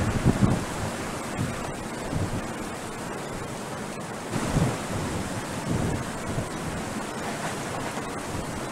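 Hurricane wind and driving rain rushing steadily, with gusts buffeting the camcorder microphone several times.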